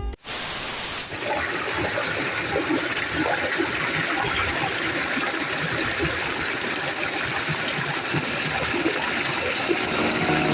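River water rushing steadily: an even, continuous noise of fast-flowing water.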